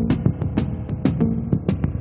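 Background music with a fast, steady drum beat over sustained low notes.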